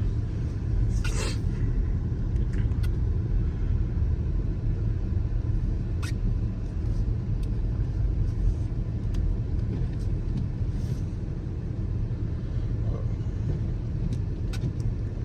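Steady low rumble of a 2018 Dodge Durango driving on snowy streets, heard from inside the cabin, with a few brief clicks along the way.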